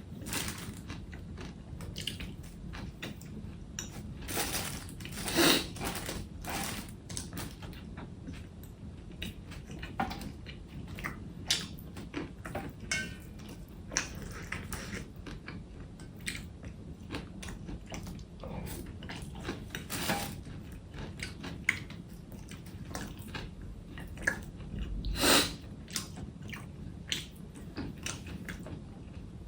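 A person eating close to the microphone: chewing and biting, with many small sharp clicks and crunches. Two louder bites come about five seconds in and again near the end.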